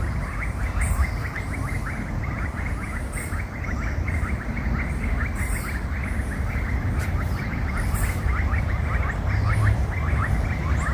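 Chorus of frogs: many short calls repeated rapidly and overlapping in a dense, steady din, over a low rumble.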